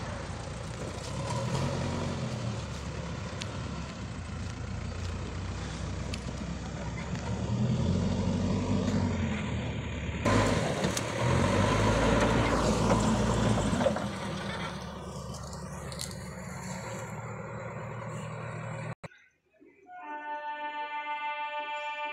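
JCB backhoe loader's diesel engine running, its revs rising and falling about three times as it works the digging arm. It cuts off abruptly near the end, and after a brief silence background music begins.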